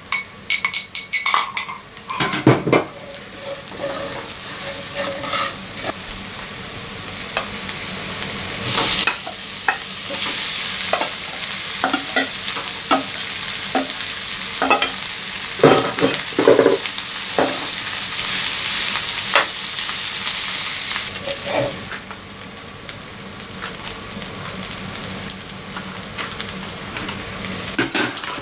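Vegetables and spices frying in oil in a frying pan, sizzling steadily, while a metal slotted spatula stirs and scrapes against the pan with short knocks. There are a few metal clinks near the start.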